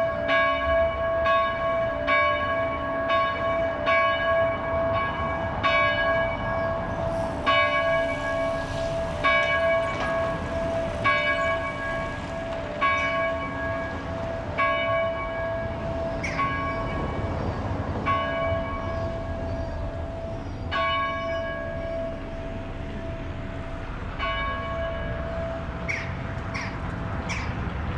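Church bells of the Onze-Lieve-Vrouwkerk ringing, with strokes about twice a second at first that come further and further apart, the last one a few seconds before the end, and the bell's hum dying away after it.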